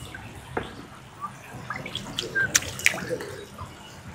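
Water splashing and dripping in short irregular bursts, with a few sharp clicks; the loudest come about two and a half and three seconds in.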